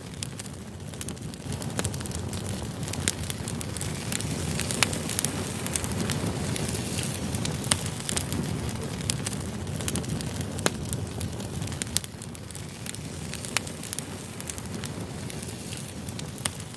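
Burning firewood crackling, with frequent sharp pops over a steady low rushing of the flames.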